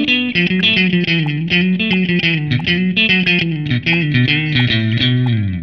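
Rock music driven by electric guitar over a bass line, its low note sliding down just before the end.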